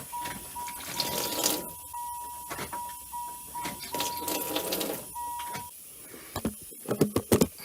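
Electronic warning chime beeping in rapid, uneven pulses at one steady pitch, with two bursts of hissing about a second and four seconds in as old fuel is pumped out of the open fuel line. A few sharp clicks near the end.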